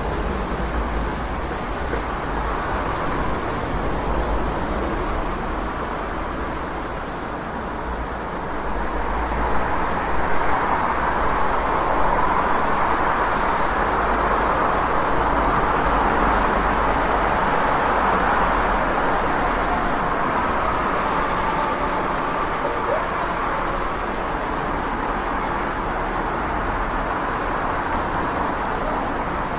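City street traffic noise: a continuous wash of cars going by, with a low rumble underneath. It grows louder for a stretch in the middle as traffic passes closer.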